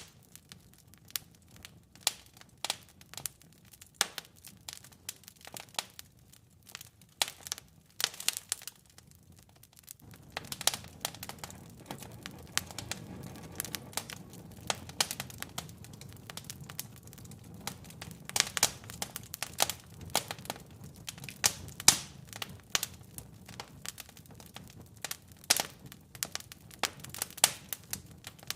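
Burning wood logs crackling and popping in a fireplace, with sharp irregular pops several times a second. A low steady rumble of the flames comes in about a third of the way through.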